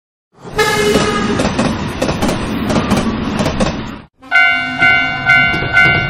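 A train passing, a rumbling clatter that cuts off about four seconds in. Then a Japanese railroad crossing's warning bell starts ringing, one ding about twice a second.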